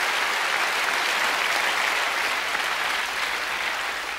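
Audience applauding, beginning to die away near the end.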